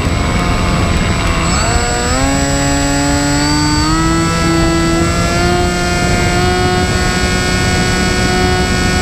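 Motor and propeller of an FPV flying wing whining up in pitch about two seconds in as the throttle opens, rising again near four seconds and then holding a steady whine. Heavy wind rush on the wing's onboard camera runs under it.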